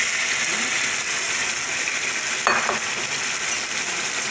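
Marinated chicken necks and wings sizzling in hot oil in a non-stick pan over a high gas flame, just after being tipped in. One sharp click about two and a half seconds in.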